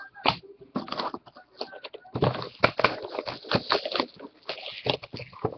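Plastic shrink wrap crinkling and tearing as it is stripped off a sealed trading-card box: a rapid, irregular run of crackles and rips, densest from about two seconds in.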